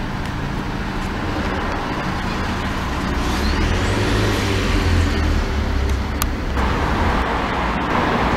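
Road traffic noise: a steady hiss with a passing vehicle's low rumble swelling in the middle and fading again.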